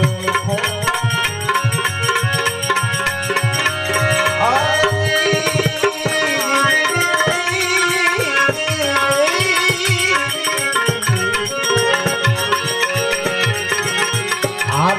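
Instrumental passage of a Gujarati bhajan: tabla playing a steady rhythm under a sustained melody line.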